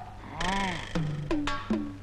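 Comic background music: drum strokes whose pitch drops sharply after each hit, about five in two seconds, with a short swooping tone just before the middle.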